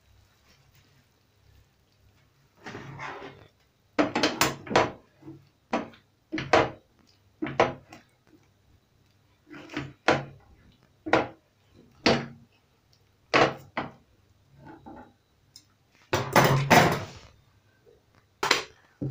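A spatula stirring and tossing a chicken and broccoli stir fry in a frying pan: a dozen or so separate scraping knocks against the pan, irregularly spaced, starting a few seconds in.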